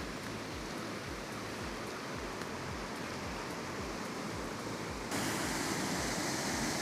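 Steady rushing of a waterfall of about 20 feet. About five seconds in, the rush suddenly gets louder and brighter.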